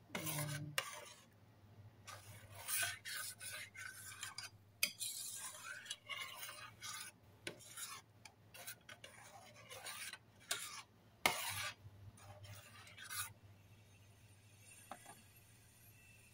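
Metal spoon stirring oatmeal in milk in a stainless steel saucepan, with irregular wet scrapes and clinks against the pan's sides and bottom, stopping about thirteen seconds in. A low steady hum runs underneath.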